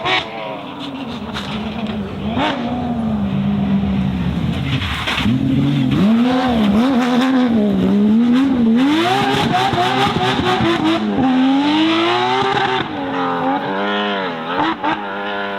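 Porsche 997 GT3 rally car's flat-six engine revving hard and lifting off again and again as it passes, its pitch rising and falling with throttle and gear changes, loudest in the middle. A few sharp pops come near the start.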